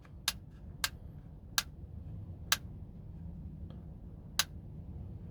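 Five sharp clicks at uneven intervals from the reassembled trigger and hammer mechanism of an AAP-01 airsoft pistol's lower half as it is cycled by hand: the mechanism working as it should.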